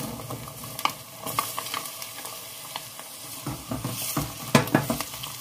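Onions and freshly added diced red pepper sizzling as they fry in oil in a stainless steel pot, with a wooden spoon stirring and knocking against the pot. The stirring gets busier and louder about three and a half seconds in.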